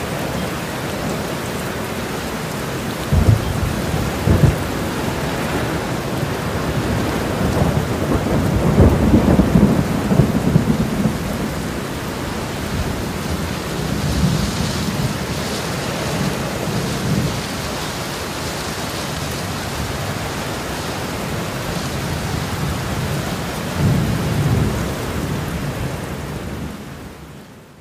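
Steady rushing water noise with deep rumbles swelling every few seconds, fading out near the end.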